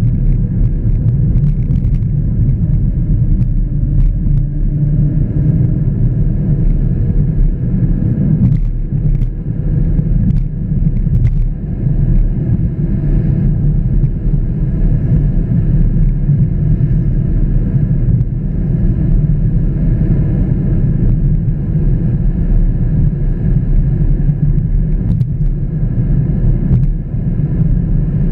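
A car's engine and tyre noise heard from inside the cabin while driving at road speed, as a steady low rumble.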